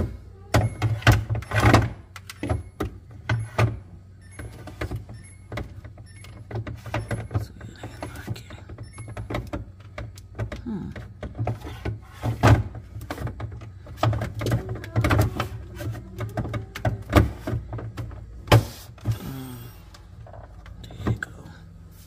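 Plastic water filter cartridge being pushed and twisted into its housing in a Samsung refrigerator: irregular plastic knocks, scrapes and clicks over a steady low hum.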